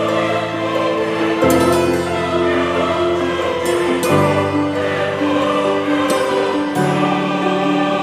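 Background music with sustained choir voices, the chords changing about every two to three seconds under a slow melody.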